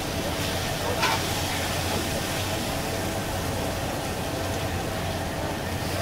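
Batter-coated fish deep-frying in a large karahi of hot oil: a steady sizzle over a low hum, with one short clink about a second in.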